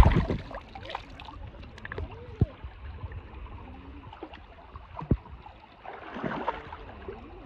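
Water splashing and sloshing, opening with one loud sharp splash or thump, with a few short knocks and another brief burst of splashing near the end.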